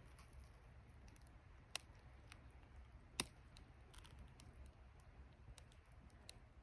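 Near silence over a low steady hum, with faint scattered clicks; two sharper clicks stand out, a little under two seconds in and about three seconds in.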